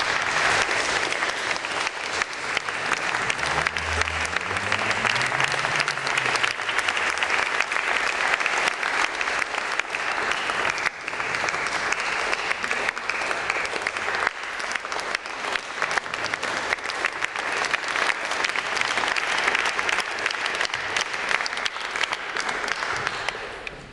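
A large audience applauding steadily for over twenty seconds, fading out near the end.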